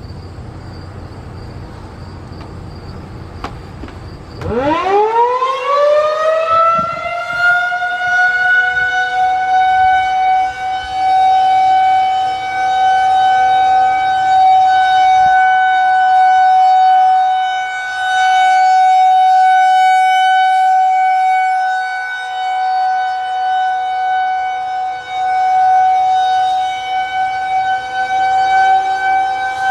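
Federal Signal 2001-130 rotating outdoor warning siren winding up from silence about four seconds in, its pitch rising over a few seconds, then holding one steady tone: the Alert signal of a siren test. Its loudness swells and dips every several seconds as the rotating head sweeps past.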